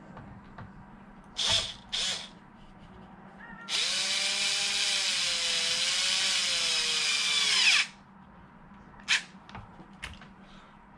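A cordless power drill/driver driving a bolt in: two short trigger blips, then about four seconds of steady running whose pitch wavers and drops near the end as the bolt tightens, then cuts off, followed by one more short blip.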